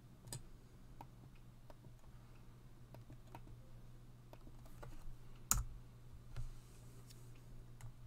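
Computer mouse clicks and keyboard key presses: about a dozen short, scattered clicks, the loudest about five and a half seconds in, over a faint steady low hum.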